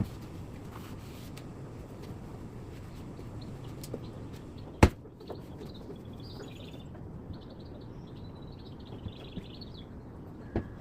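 Small birds chirping and warbling from about six seconds in, over a steady low background noise, with one sharp knock a little before the chirping starts.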